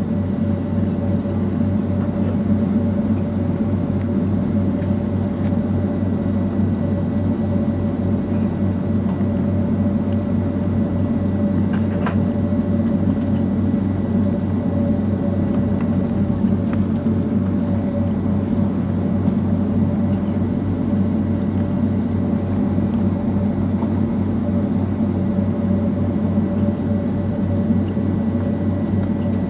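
Steady drone of a Boeing 757-200's jet engines and cabin air heard from inside the passenger cabin, with a low hum and a steady whine. A faint click about twelve seconds in.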